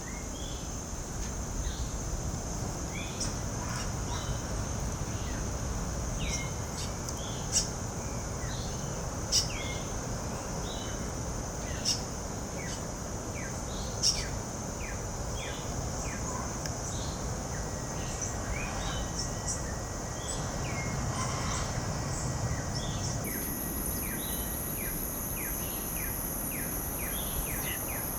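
Small birds giving many short chirps over a steady, high insect drone. Four sharp, loud chips stand out in the middle, about two seconds apart, and about two-thirds of the way through a second, higher insect buzz starts up.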